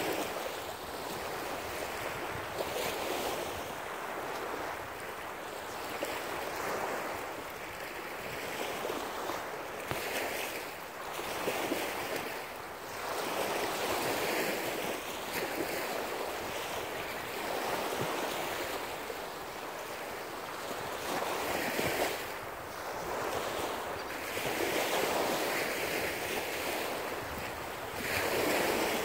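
Small waves breaking and washing up a sandy shore, swelling and fading every couple of seconds, with wind buffeting the microphone.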